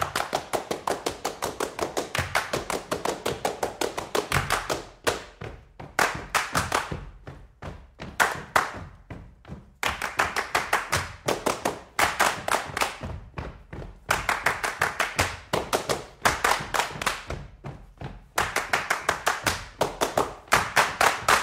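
Fast rhythmic clapping and tapping, about five strokes a second, in runs of a few seconds broken by short pauses: the percussive opening of a background music track.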